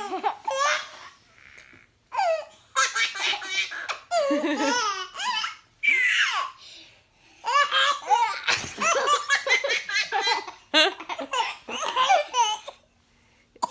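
A baby and a toddler laughing hard in repeated bouts of high-pitched giggles and belly laughs, with short pauses between bouts and a falling squeal about six seconds in.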